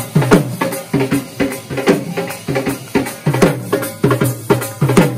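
Dhol drum played in a quick, steady rhythm of loud, booming strokes.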